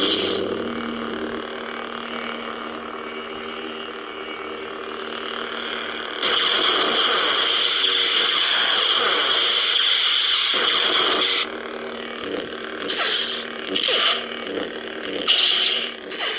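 Lightsaber sound board playing through a Veco 2-watt bass speaker: the blade ignites and settles into a steady low hum, then a louder sustained effect runs for about five seconds, followed by several short surges over the hum.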